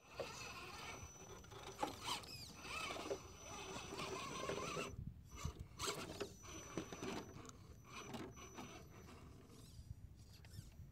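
Radio-controlled scale rock crawler truck climbing rock: its small electric motor and geared drivetrain whine, rising and falling in pitch with the throttle, with scattered clicks and scrapes of tires and chassis on the rock.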